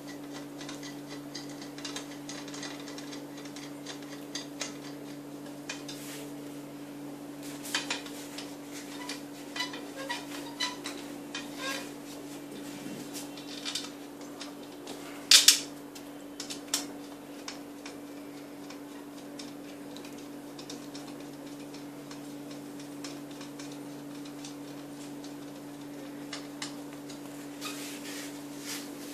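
Scattered light clicks and clatters of baby-cradle parts being handled during assembly: plastic tube fittings and frame pieces knocking together, with a sharper clatter about halfway through.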